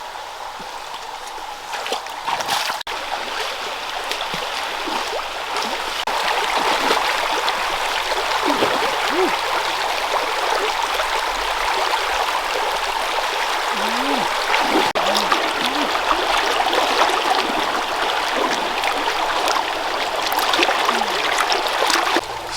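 Stream water running steadily, with a few faint, brief voice-like sounds here and there.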